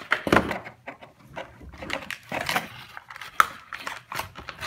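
Irregular clicks and crinkles of a small toy's plastic packaging being handled and knocked on a wooden table.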